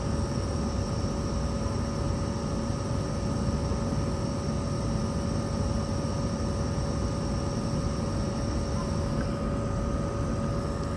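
LG Dual Inverter window air conditioner running: its fan blowing steadily while the inverter compressor hums with steady whining tones, at this speed sounding close to a rotary compressor. A faint high whine fades out near the end.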